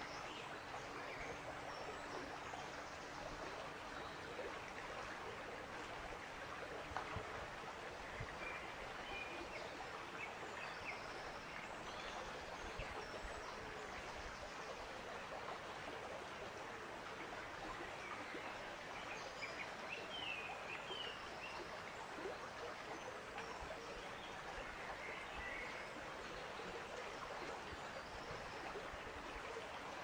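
Outdoor nature ambience: a steady, even rushing noise with a few brief, faint bird chirps scattered through it.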